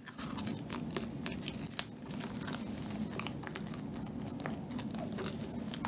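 Close-miked chewing of a mouthful of soft chocolate bread with a thick cream filling: a steady run of small mouth clicks and smacks.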